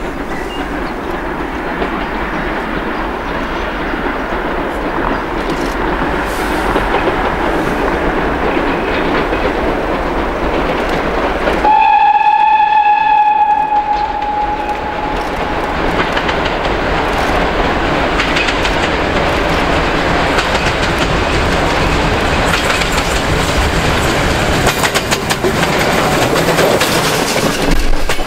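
Ol49 steam locomotive approaching with a passenger train, its running noise growing louder, and one steam whistle blast about twelve seconds in lasting some two seconds. Near the end the coaches pass close, with rapid clicking of wheels over rail joints.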